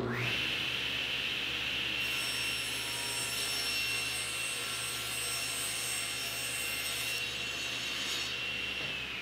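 Table saw starting up and running at speed while a plywood panel is ripped through the blade, the cut lasting several seconds. Near the end the saw is switched off and its whine starts to fall as the blade spins down.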